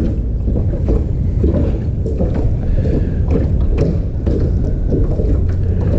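Steady, loud wind buffeting the microphone on a small boat, with choppy water lapping against the hull and a few light clicks.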